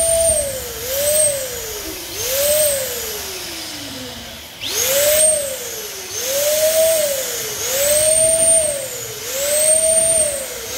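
Electric balloon pump inflating a balloon in short pulses: its motor whine rises to speed each time it is switched on and sinks as it winds down, about six times, with one longer wind-down about two and a half seconds in.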